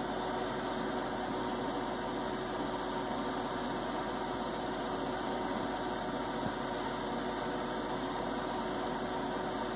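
Steady background hum and hiss with a faint steady tone, unchanging throughout.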